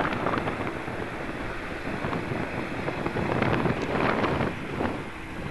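A long electric multiple-unit express train running past, its noise growing to a peak about four seconds in and then fading, with wind buffeting the microphone.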